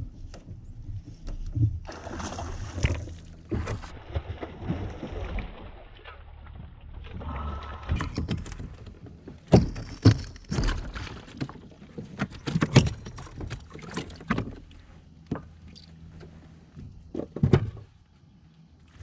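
A hooked largemouth bass splashing beside a fishing kayak, then a run of sharp knocks and thumps as it is swung aboard and handled against the hull.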